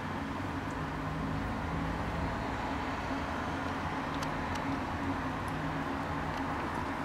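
A steady low mechanical hum, with a few faint clicks about four seconds in.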